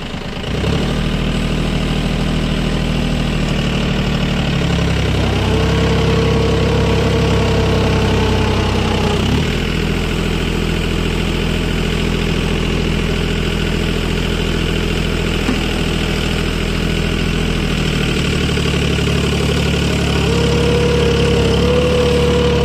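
Mahindra Oja 3140 tractor's diesel engine running steadily under load while pulling a cultivator through the soil. A steady whine joins the engine note about five seconds in and again near the end.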